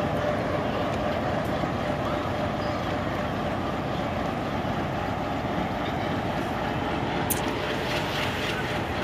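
Diesel locomotive engine idling steadily, a continuous rumble with a faint steady hum through it.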